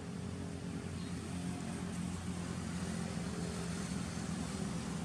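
Steady low drone of an engine running, over a noisy outdoor background.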